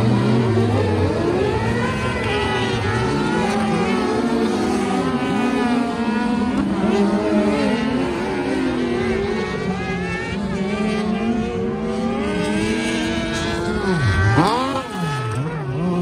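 Several dirt-track race buggies' engines revving up and down through the gears as they race round, their pitches rising and falling over one another. About fourteen seconds in one passes close, its pitch sweeping sharply up and then down.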